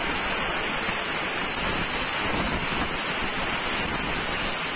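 Resanta IPR-40 inverter plasma cutter cutting through an aluminium profile: a steady loud hiss of the plasma arc and compressed air, which cuts off near the end as the cut finishes.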